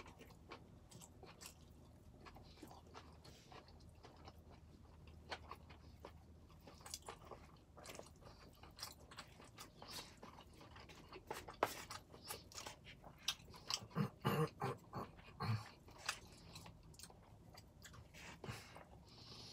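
A person chewing a mouthful of pad thai noodles: faint, wet mouth clicks and smacks throughout, with a few louder bursts about three-quarters of the way through.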